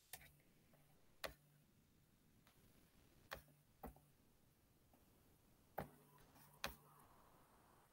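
Near silence, broken by about six faint, sharp clicks at uneven intervals over a faint low hum that comes and goes.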